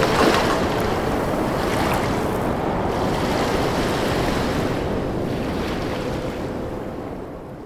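A steady, even rushing ambience like wind that fades out over the last couple of seconds.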